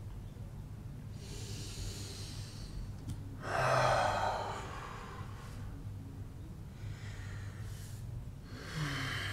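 A person breathing audibly while folding forward: a breath about a second in, a stronger open-mouthed exhale about three and a half seconds in, and another breath near the end.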